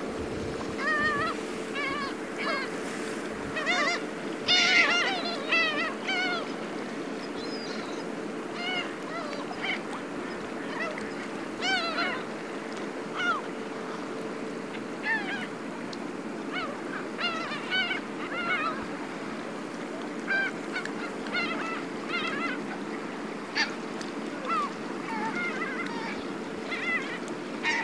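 A flock of black-tailed gulls calling over and over, many calls overlapping, loudest about four to six seconds in, over the steady hum of a fishing boat's engine.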